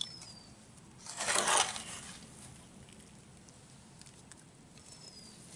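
A brief gritty rustle, about a second in, of potting soil shifting in a small terracotta pot as the pot is shaken or pressed to settle the mix.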